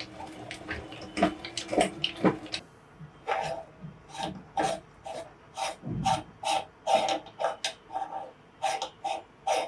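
Meat grinder crushing M&M's candies: irregular sharp cracks at first, then crunching and grinding in an even rhythm of about two strokes a second.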